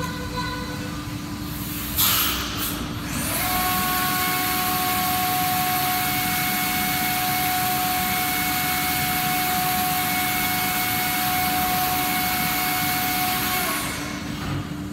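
FANUC Robodrill CNC machining centre running: a loud hiss breaks in about two seconds in. A second later the spindle whine rises to a steady pitch under a dense spray hiss, and both drop away about a second before the end, over a steady low hum.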